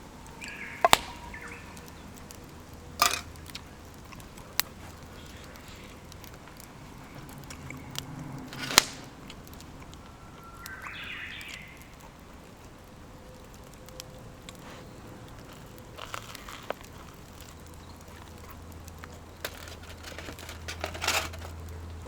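Scattered sharp clicks and knocks, with a brief rustle near the middle, from camp gear being handled.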